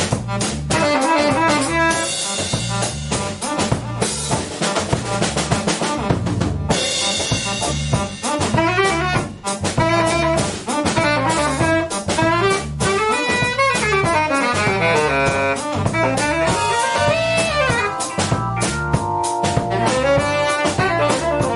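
Live instrumental band playing: saxophone lead over drum kit, electric bass and keyboards. The drums keep a steady beat with cymbal wash, and from about eight seconds in the saxophone plays a line that swoops up and down in pitch.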